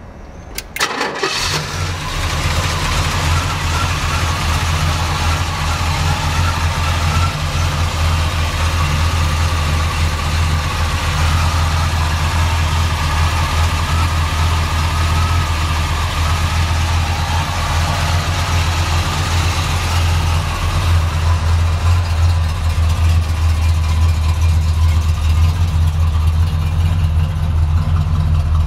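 A 1970 Chevelle Malibu's 350 Turbo-Fire small-block V8 with four-barrel carburettor and dual exhaust is cranked and catches about a second in, then settles into a steady idle.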